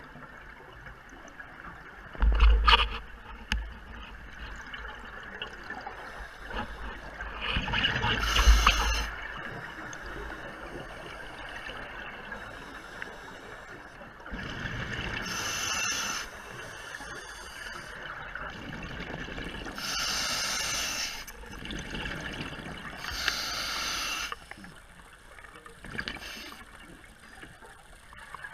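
Scuba diver breathing through a regulator underwater: breaths and exhaled bubbles gurgling out in bursts every few seconds over a steady hiss.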